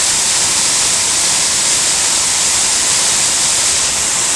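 Glenashdale Falls running in spate after heavy rain: a loud, steady rush of falling water.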